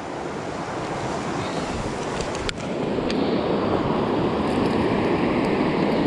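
Fast mountain stream rushing over rocks in a steady noise of water, with one sharp click about two and a half seconds in.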